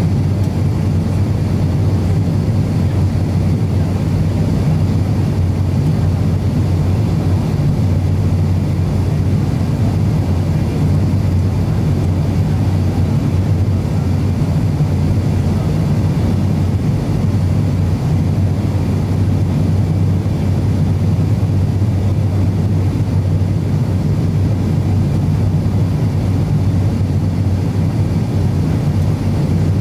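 Cabin noise inside an Avro RJ100 on approach with flaps extended: the steady drone of its four Lycoming LF507 turbofan engines and the airflow, with a strong low hum.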